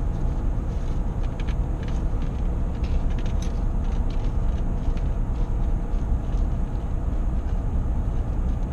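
Steady road and engine rumble heard inside a moving pickup truck's cab, with a few faint clicks in the first few seconds.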